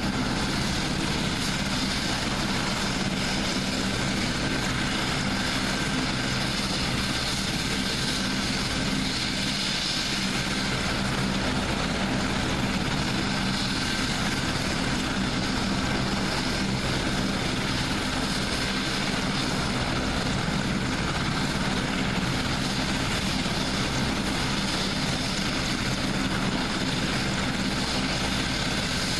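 AgustaWestland HH-101 Caesar helicopter running steadily on the ground, its three turboshaft engines and five-blade main rotor turning without change, a thin turbine whine over the rotor and engine noise.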